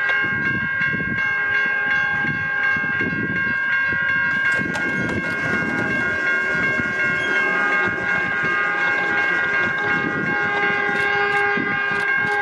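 Caltrain electric multiple-unit train's horn held in one long, continuous blast: a chord of several steady tones. Rhythmic rumbling wheel clatter from the passing train runs underneath, with sharp clicks in the second half.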